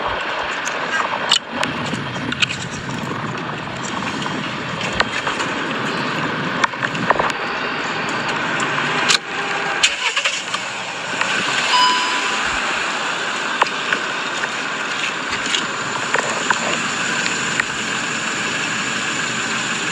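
Car engine running with a steady, noisy sound, broken by scattered sharp clicks and knocks.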